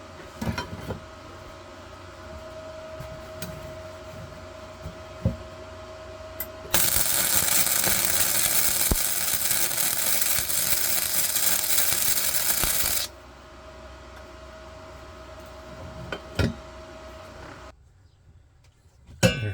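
Welding on a steel exhaust tab: a steady crackling hiss that lasts about six seconds in the middle, with scattered clicks and taps before and after it.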